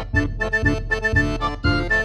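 Background music with a steady beat of about two a second and a repeating run of short high notes.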